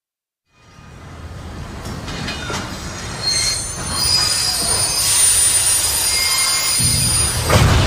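Train wheels squealing against the rails, several high-pitched tones over a rumbling rush, starting about half a second in and growing steadily louder. A sharp bang near the end, followed by a heavier low rumble.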